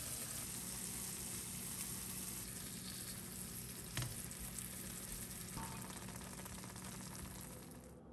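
Eggplant slices in a red sauce sizzling in a nonstick frying pan, a steady hiss, with a single sharp clack about four seconds in as metal tongs turn the pieces. The sizzling cuts off near the end.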